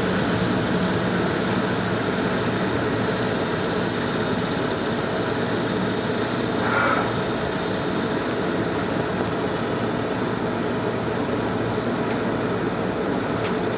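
CNC milling machine running with a steady mechanical noise, with a brief louder swell about seven seconds in.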